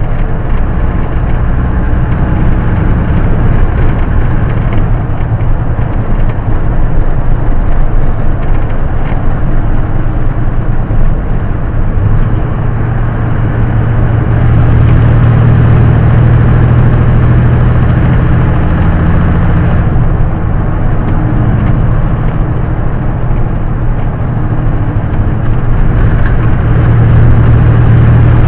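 Semi truck's diesel engine and road noise heard from inside the cab while cruising on the freeway, a steady low drone that grows stronger about halfway through. A single short click near the end.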